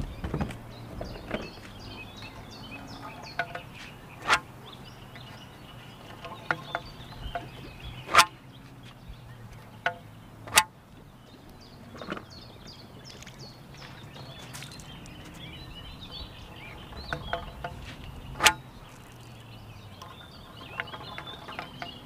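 Sharp knocks and clicks of fishing gear being handled in a small boat, a handful of loud ones several seconds apart and smaller ones between, over faint bird chirping.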